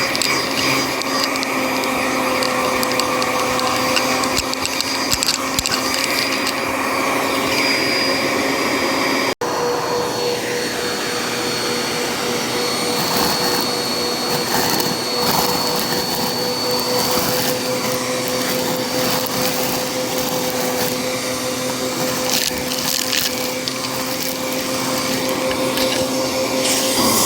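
Bissell vacuum cleaner running with a steady motor whine while it sucks up foil confetti, which crackles and rattles through it in scattered bursts. The sound cuts out for an instant about nine seconds in.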